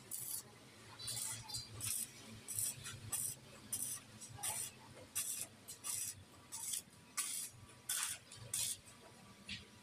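Stick (arc) welder crackling in short bursts, about one to two a second, as the arc is struck and broken again and again. The bursts come from stitch-welding a steel padlock ear onto an iron door frame.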